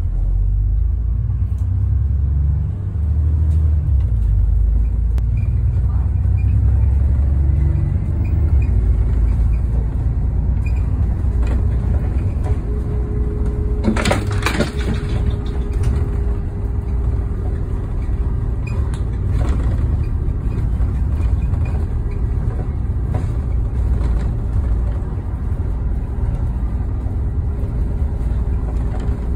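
Bus engine and road noise heard from inside a moving bus: a steady low rumble, joined by a steady whine about a third of the way through, with a brief noisy rattle about halfway.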